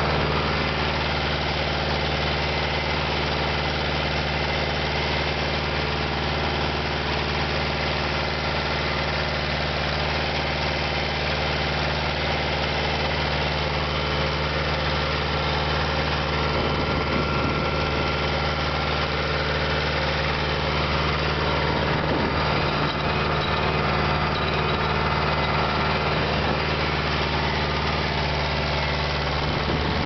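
Deutz D6806 tractor's air-cooled six-cylinder diesel engine running at a steady speed while pulling a tillage implement through the field, heard from the driver's seat close to the exhaust stack.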